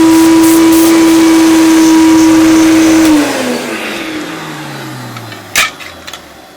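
Hoover Turbopower 1 upright vacuum cleaner's motor running with a steady high whine, drawing suction through the hose and pan converter. About three seconds in it is switched off and the motor winds down, its pitch falling away over a couple of seconds, with a sharp click near the end.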